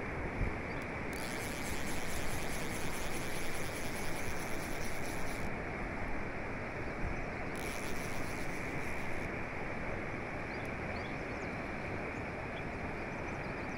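Steady rush of flowing river water close to the microphone, with two stretches of brighter hiss.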